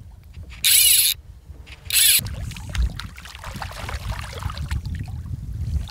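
Fly reel ratcheting in two short, high buzzing bursts while a hooked bonefish is played out, then a low rumble.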